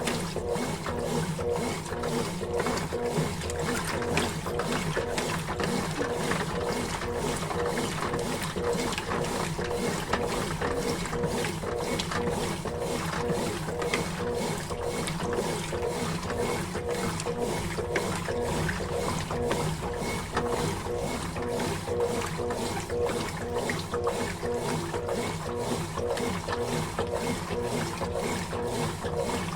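Consul Facilite 11 kg (CWG11) top-loading washing machine agitating a load of laundry in its wash water: a steady motor hum under a regular churning rhythm.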